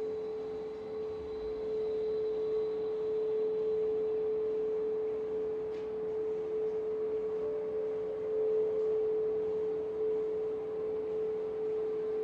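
A steady, sustained single-pitched meditation tone, one clear unwavering note that holds without fading.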